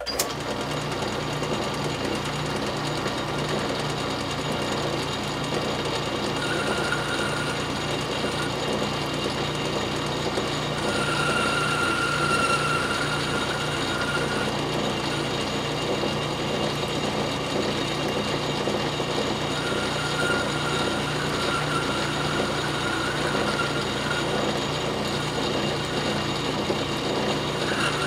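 South Bend Model A metal lathe switched on and running, its four-jaw chuck spinning, with a steady mechanical drive noise. A single-point tool is turning a 60-degree point on steel drill rod, and a high whining tone from the cut comes and goes several times.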